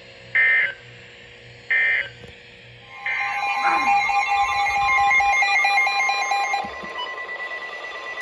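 Two short, shrill digital data bursts of an Emergency Alert System signal, about a second and a half apart, marking the end of one broadcast alert. About three seconds in, a loud steady two-tone EAS attention signal starts. It lasts about three and a half seconds and then drops away.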